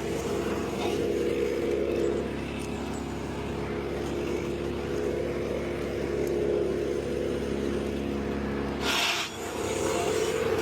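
An engine running steadily at constant speed, with a brief break and a short hiss about nine seconds in before it carries on.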